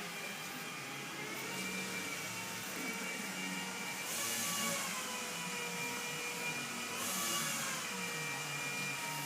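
A steady motor whine, like a shop vacuum, with a pitch that drifts slowly up and down. About four seconds in and again about seven seconds in there are brief rasping hisses, which fit long strokes of sandpaper on a sanding block over a primed panel.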